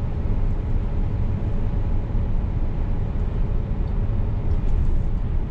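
Inside the cab of a Scania S500 truck cruising at motorway speed: a steady, low engine drone mixed with road and tyre noise.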